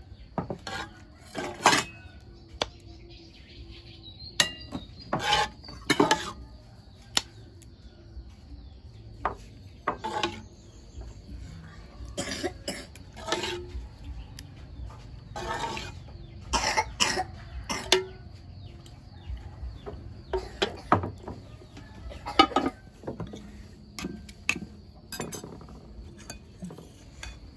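Irregular knocks and clatter, a few dozen sharp strokes at uneven intervals, with a faint steady high tone throughout.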